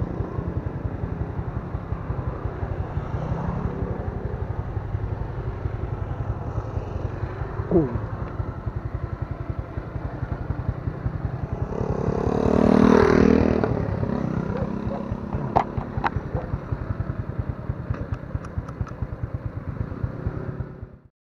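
Motorcycle engine running steadily while riding. It swells louder a little past halfway, a few sharp clicks come near the end, and it cuts off suddenly at the very end.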